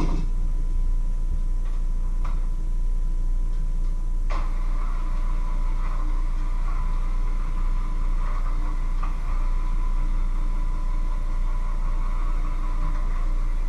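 A low steady hum throughout, with a couple of light clicks early. About four seconds in, an electric hand mixer switches on and runs steadily in a bowl, a constant motor whir.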